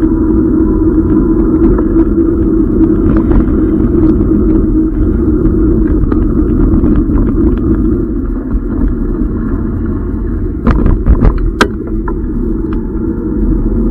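Steady rumble of an e-bike's tyres and frame vibration on a rough, wet road surface, picked up through the camera's case. A few sharp knocks come close together about three-quarters of the way through.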